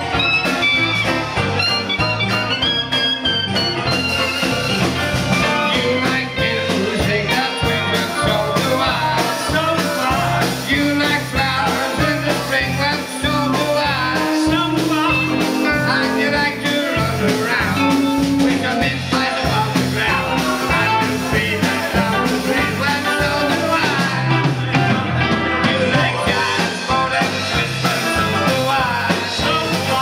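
Live pub dance band playing an up-tempo number over a steady drum beat, with a man singing into a handheld microphone.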